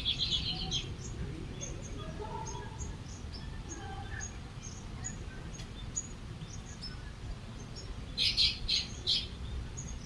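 Small birds chirping and twittering: a quick run of chirps at the start and another about eight seconds in, with short high chirps scattered in between, over a steady low rumble.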